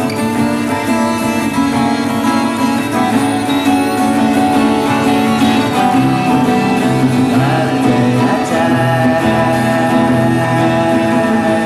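Music: two steel-string acoustic guitars, one of them a 12-string, playing a folk song, with a singing voice.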